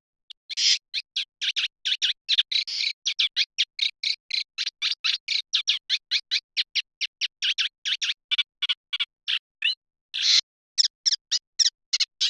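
Eurasian reed warbler singing: a fast, unbroken run of short, high chattering notes, about four a second, with one brief pause near the ten-second mark.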